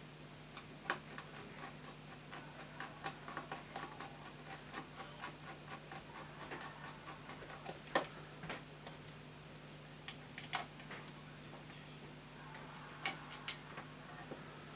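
Small screwdriver turning a screw into a 3D-printed plastic locomotive chassis: a run of small quick ticks, several a second, with a few louder clicks of tool and parts knocking together.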